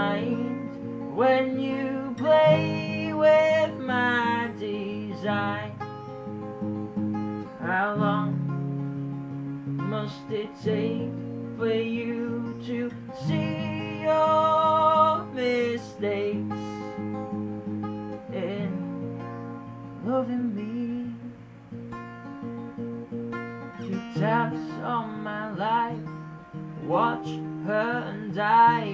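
Two acoustic guitars played together, with a man singing a melody over them in phrases.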